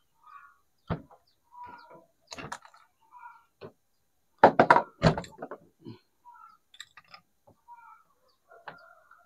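Clicks, knocks and clatter of small plastic and metal parts as a Philips hand mixer's gear housing is taken apart by hand, a metal bracket lifted off and gears pulled out. Irregular handling sounds, with the loudest clatter about halfway through.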